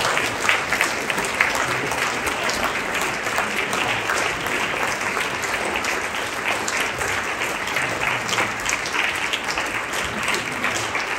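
A large congregation applauding steadily, many hands clapping at once.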